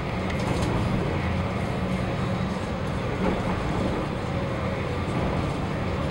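A passenger ferry's engines running with a steady low drone, heard aboard under way, over an even rushing noise.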